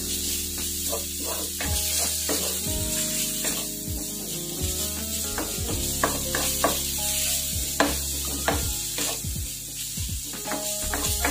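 Minced pork sizzling in a hot oiled nonstick wok while a wooden spatula stirs and scrapes it, with several sharp taps of the spatula on the pan in the second half.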